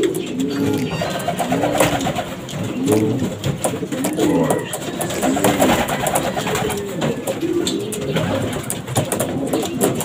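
Racing pigeons cooing: a run of low, arching coos about one a second.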